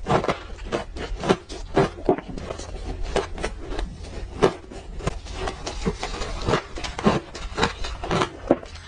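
Frozen orange ice being bitten and chewed close to the microphone: an irregular run of sharp, crunchy crackles, a few each second.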